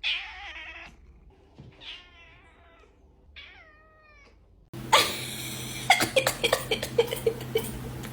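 A cat meowing three times, the first call harsh and the last falling in pitch. About four and a half seconds in, the sound cuts abruptly to a noisier stretch with a steady low hum and a run of sharp clicks and knocks.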